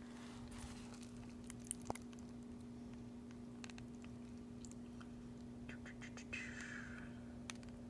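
Faint handling of a plastic DVD case: a few soft clicks and a brief rustle near the end, over a steady low hum.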